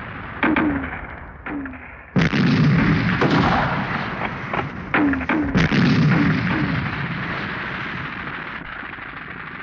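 Battle sounds of gunfire and explosions: a few sharp shots, then about two seconds in a loud blast whose noise carries on through further shots and slowly fades.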